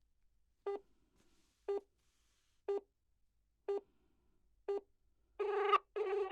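Telephone call tones: five short beeps about one a second, then near the end the first ring begins, two longer bursts of ringing close together.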